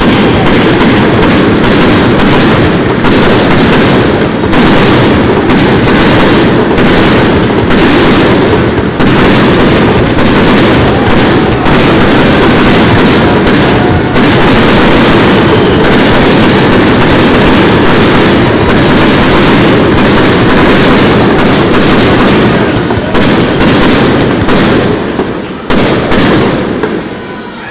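Fireworks display: a loud, continuous run of rapid bangs and crackling from bursting shells, easing off briefly near the end.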